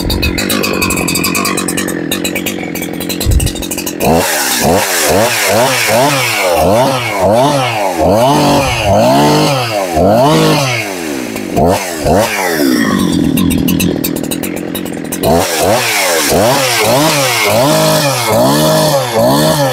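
A brand-new Husqvarna 372XP 70cc two-stroke chainsaw idles, then is revved up and down over and over in free air, about once a second. It drops back to idle for a couple of seconds in the middle, then is revved again. It is being run to get the chain oiler to start putting bar oil on the chain.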